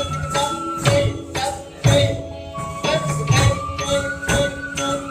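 Music: held melodic notes over regular percussion strikes, about one a second.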